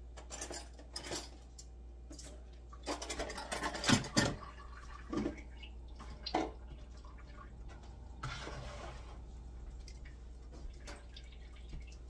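Kitchen sink work: a plastic container knocking and clattering as it is rinsed and handled, with splashing water and a short run of tap water about eight seconds in.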